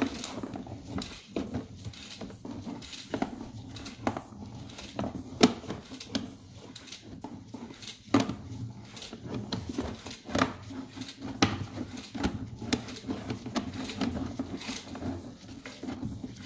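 Sewer inspection camera being pushed down a drain line: irregular clicks and knocks from the push rod and camera head working through debris, over a steady low hum.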